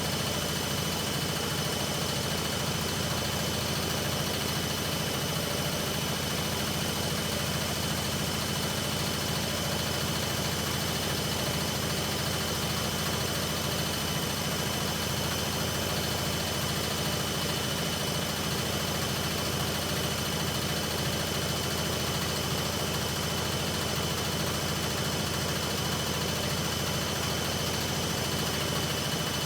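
Hoover Ecologic Computer 1300 washing machine on a spin-only cycle, the drum spinning at a steady high speed with an even hum and a constant high whine.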